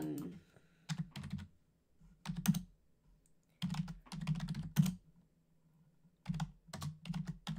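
Typing on a computer keyboard: clusters of quick keystrokes in several short runs, with pauses between.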